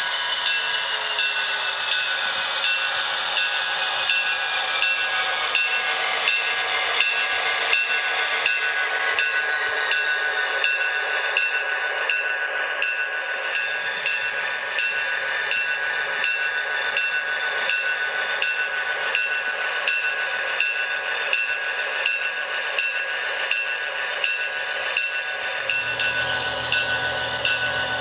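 HO scale model diesel locomotive running along its track, with a steady whine and regular clicks about twice a second. A low hum comes in near the end.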